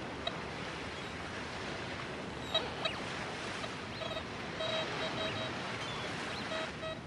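Steady wash of ocean surf, with metal detectors giving short repeated beeps in runs that start and stop. A couple of short high cries stand out about two and a half seconds in.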